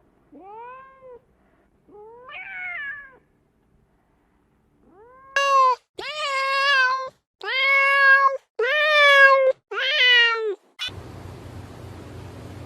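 Cat meowing repeatedly: two softer meows, then a pause and a run of five louder, longer meows in quick succession.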